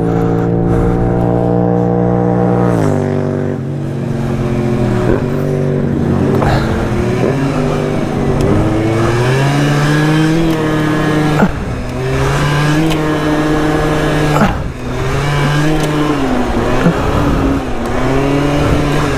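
MBK Booster's 50cc two-stroke scooter engine running under way. It holds a steady high note for about three seconds, drops, then rises and falls repeatedly as the throttle is worked. The rider says it struggles under acceleration and blames the cylinder.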